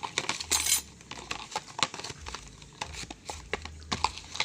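Homemade foam-glue slime being kneaded and squeezed by hand: a run of irregular sticky clicks and squelches, with a short crackly hiss about half a second in.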